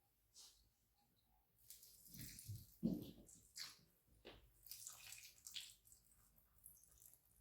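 Faint, irregular splashing and trickling of water being poured onto potted plants, with a soft thump about three seconds in.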